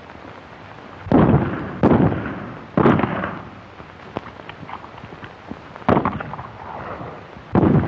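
Gunfire in an old film soundtrack: five sharp shots, three in quick succession in the first three seconds and two more later, each trailing off in a short echo, over a steady film hiss.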